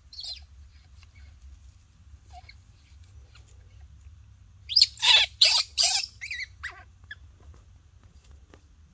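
Baby monkey squealing: a burst of about four loud, high-pitched squeals around five seconds in, followed by a few fainter squeaks.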